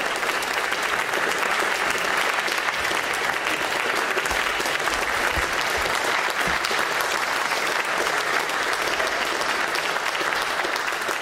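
Audience applauding steadily, a dense, even clapping, with a few dull low thumps about four to six seconds in.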